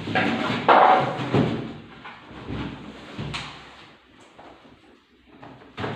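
Handling noises from unpacking a boxed TV: packaging scraping and rustling, with several knocks. The loudest knock comes about a second in, and a sharp click comes near the end.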